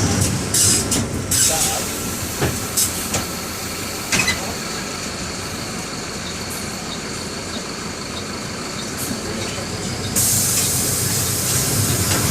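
Inside a Mercedes-Benz OF-1721 bus: its four-cylinder OM-924 LA diesel running, with body rattles and clicks and a thin high whine through the middle. About ten seconds in, a loud hiss sets in and the sound grows louder.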